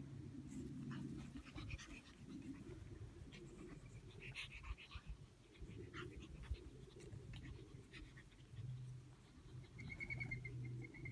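Pug puppies panting and breathing hard as they wrestle and play-bite, with light scuffles in the grass. A thin, high, rapidly repeated tone comes in near the end.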